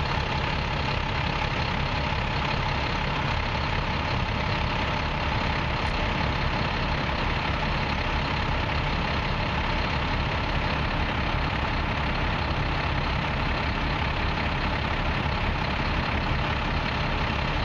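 Diesel engine of a parked Kenworth fire water tender idling steadily close by, with a faint steady whine over the low rumble.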